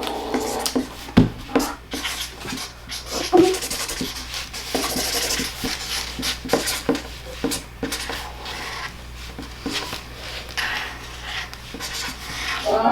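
Handling noise from writing answers down: pens or markers scratching and rubbing, with scattered light taps and knocks.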